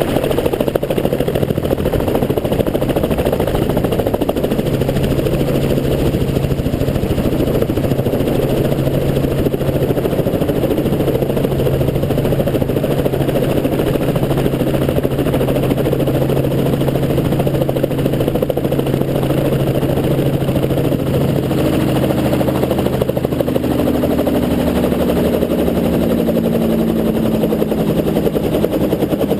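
Helicopter rotor and turbine noise in steady flight: a constant loud drone with a low hum, the pitch of its tones shifting slightly about three quarters of the way through.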